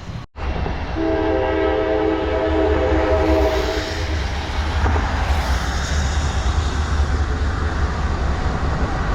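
Train passing with a steady low rumble. Its horn sounds a chord of several steady tones for about three seconds, starting about a second in.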